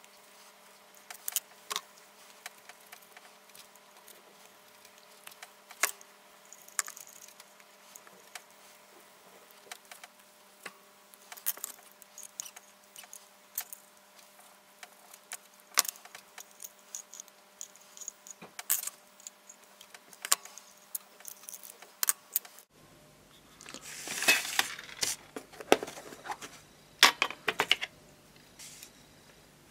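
Irregular small metallic clicks and taps as a sterling silver petrol lighter's parts are worked with a wire pick and pliers. About 23 s in, a denser, louder run of rustling and clicking from handling takes over for several seconds.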